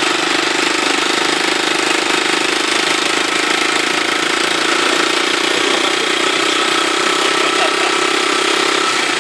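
Small motorcycle engine of a motorized tricycle running steadily as it travels, a loud, even engine noise with no change in pace.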